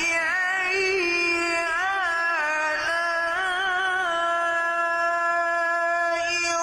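A single voice singing a wordless vocalise with no accompaniment: long held notes broken by wavering ornamental turns, in the style of a nasheed.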